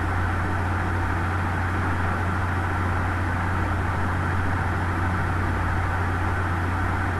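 Steady low hum with an even hiss over it, unchanging throughout: background noise picked up by the recording microphone.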